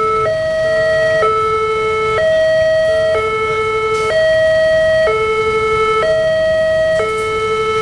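Indonesian railway level-crossing warning alarm, two electronic siren units sounding together in a steady two-tone high-low pattern that alternates about once a second, warning that a train is approaching. Road traffic noise underneath.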